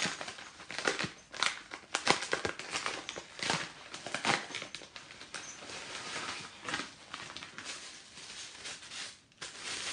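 Packaging crinkling and rustling in handling as gift items are unwrapped and taken out, with irregular crackles and small knocks.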